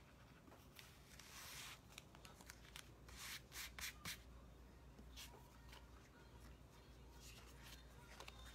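Faint rubbing and rustling of hands sliding over a cloth towel, in a few short bursts with near silence between.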